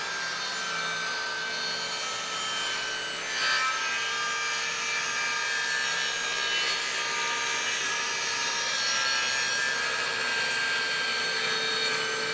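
TACKLIFE MTS01A 10-inch, 15-amp jobsite table saw running and ripping a length of wooden trim. Its motor gives a steady whine under the noise of the blade cutting through the wood, with a short louder moment about three and a half seconds in.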